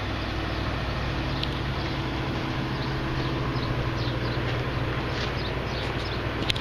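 Claas Tucano 430 combine harvester's diesel engine running at a steady speed, a constant low hum. Faint short high chirps sound over it, and there is a single sharp click near the end.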